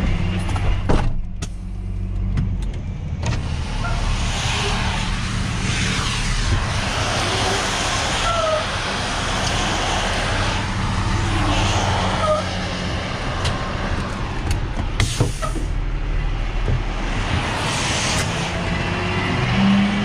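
Flatbed tow truck's engine running with a steady low hum while freeway traffic passes on the wet road, the hiss of tyres on water swelling and fading several times. A few sharp knocks, one about a second in and another near the middle.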